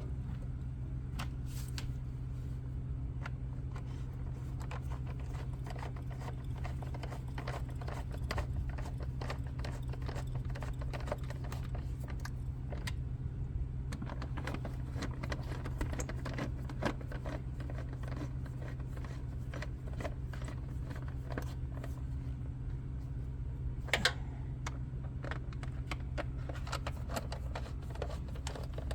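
Small irregular clicks, taps and rattles of the air filter housing and its fasteners being handled and closed, over a steady low hum, with a louder clatter about 24 seconds in.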